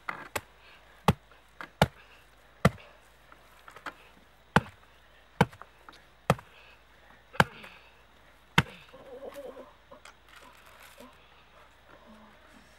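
About ten sharp knocks, roughly one a second, as palm fruits are split open; they stop a little after halfway.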